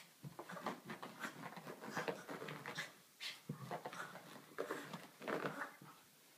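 Small shaggy dog rolling and wriggling on its back on carpet, its body and paws scuffing the carpet in short irregular bursts, along with the dog's panting.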